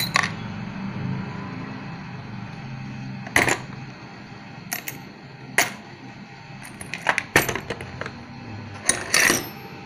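Small steel sewing-machine bolts, nuts and washers clinking against each other in a plastic container as they are handled. There are several separate sharp clinks a second or so apart, and a quick cluster near the end.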